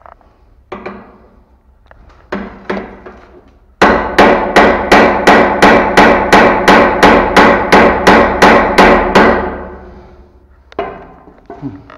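Hammer blows: a few single strikes, then a fast run of about seventeen strikes at roughly three a second, each with a ringing tone, followed by a couple of lighter knocks.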